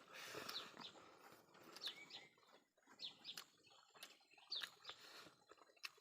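Birds chirping faintly in the background: short, quick downward chirps about once a second, with scattered sharp clicks between them.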